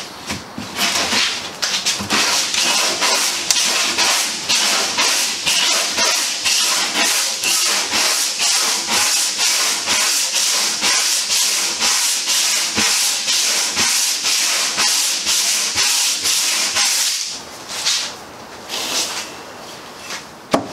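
Long hand sanding block with 60-grit paper scraping over cured Total Fair epoxy fairing compound on a boat's bow, in quick, even back-and-forth strokes. It stops about 17 seconds in, then a few more strokes come near the end.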